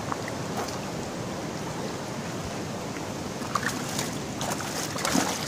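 River water flowing steadily, with a few faint clicks in the last couple of seconds.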